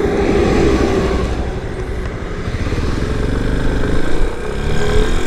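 Yamaha Serow 250's air-cooled single-cylinder engine on the move, with wind noise. The engine note eases down, then climbs again from about three seconds in as the bike accelerates out of a right turn.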